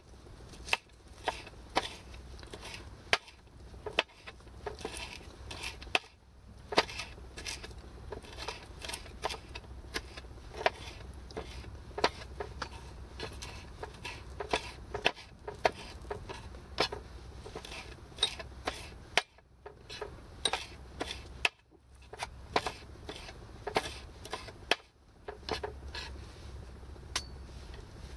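Kitchen knife chopping vegetables on a wooden chopping board: irregular sharp knocks of the blade striking the board, about one or two a second, with a few short pauses.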